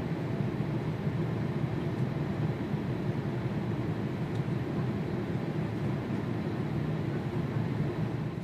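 Steady low rumble of cabin noise inside a Boeing 777-200 airliner on the ground after landing.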